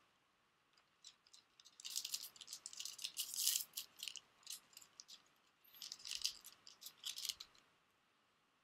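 Foil booster-pack wrapper crinkling as it is torn open and handled, in two bursts of crackly rustling: one about two seconds in, another about six seconds in.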